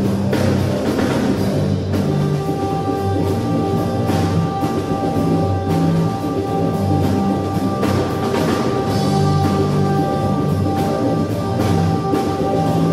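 Live electronic jazz: a drum kit playing over low, shifting bass notes, with two steady electronic tones coming in about two seconds in and holding.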